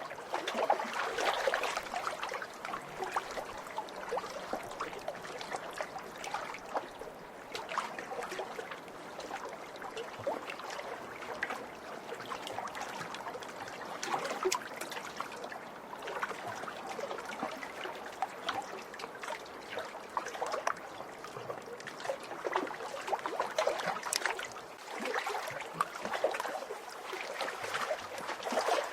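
Small lake waves lapping and splashing at the water's edge, a continuous wash of many small splashes that swells a little near the start and again near the end.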